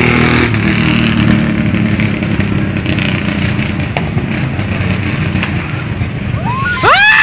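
A large handheld firework tube fizzing and crackling as it is lit and its fuse burns, before its first shot. Near the end comes a burst of shrill squeals that rise and fall in pitch.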